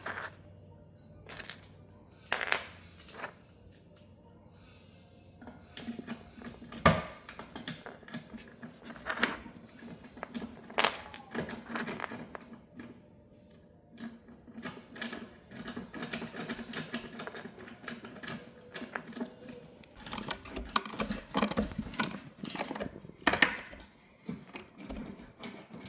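Furniture being assembled by hand: irregular clicks, metallic clinks and knocks of hardware and tools against the parts, with a few sharper knocks now and then.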